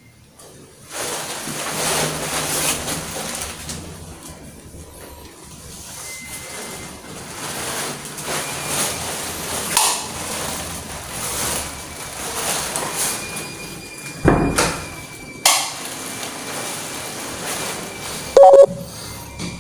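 Rustling movement and handling noise from a handheld camera carried through an empty, echoey house. There are a couple of sharp knocks a few seconds before the end and a brief loud squeak just before the end.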